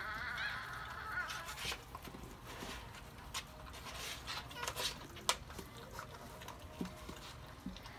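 Newborn Shih Tzu puppy squeaking, a high wavering cry in the first second or so, then scattered soft clicks and rustles of handling in the plastic whelping box.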